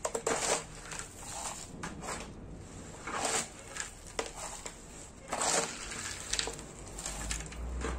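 Gravelly potting mix of soil, sand, perlite and small river pebbles being scooped and poured into a plant pot around a succulent: a string of irregular gritty pours and scrapes. A low rumble builds near the end.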